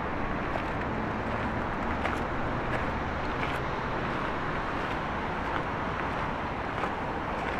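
Steady city street ambience of road traffic: an even, continuous hum of cars, with a few faint scattered ticks.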